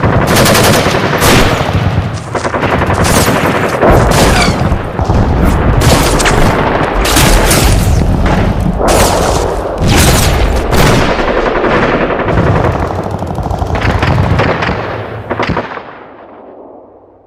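Gun battle: continuous rapid automatic gunfire, overlapping bursts of machine-gun fire with louder single shots and booms standing out, tailing off over the last couple of seconds.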